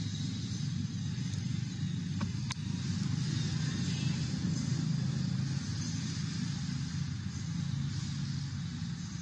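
Steady low rumble with a hiss over it, and one sharp click about two and a half seconds in.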